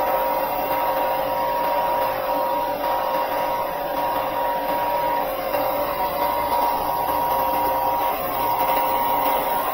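Electric power tool running steadily: a high-speed motor's constant whine over a hiss, without a break.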